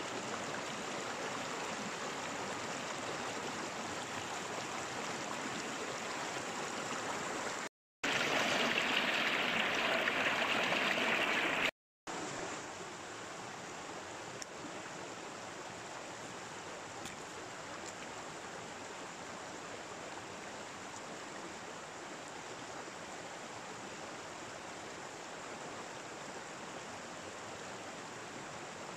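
Stream water rushing steadily. It is broken twice by short cuts to silence, about eight and twelve seconds in; between the cuts the rushing is louder and brighter.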